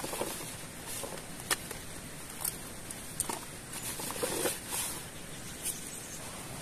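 Nylon backpack being handled and rummaged: rustling fabric with a few short scattered clicks and scrapes, over a steady hiss.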